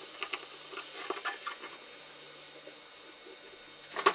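Cotton swab rubbing and scraping along the edge of a phone's frame as the adhesive area is cleaned and degreased, making faint scratchy ticks in the first second or two. A couple of sharp clicks near the end.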